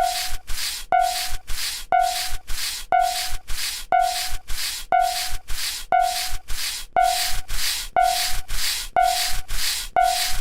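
Novelty level-crossing warning sound effect looping steadily: a sharp ping about once a second, with rasping, scraping hiss bursts about twice a second.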